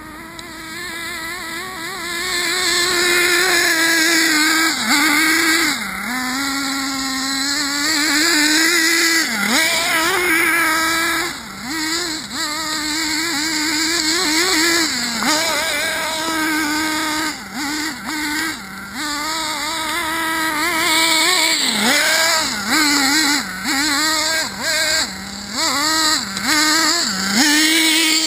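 Hobao Hyper 7 TQ2 buggy's .21 nitro engine running at high revs, its note dropping briefly and climbing back each time the throttle is let off and opened again. The throttle is blipped more often in the second half.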